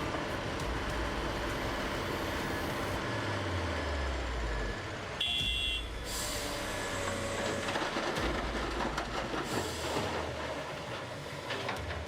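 Heavy earthmoving machinery at work: an engine running with metallic knocks and clanks. The sound changes abruptly a little over five seconds in, with a brief high tone, and grows busier with knocks after about six seconds.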